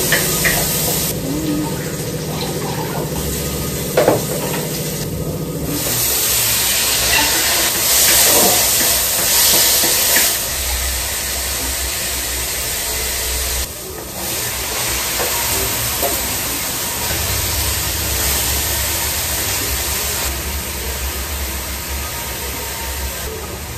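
Vegetables frying in a kadai on a gas stove, a steady sizzle as they are stirred with a spatula, with one sharp clink of the spatula on the pan about four seconds in.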